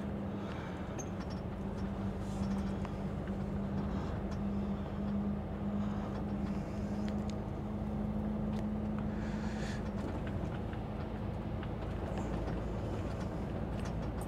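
Truck's diesel engine and road rumble heard from inside the cab while driving, a steady hum whose note drops to a lower pitch about ten seconds in.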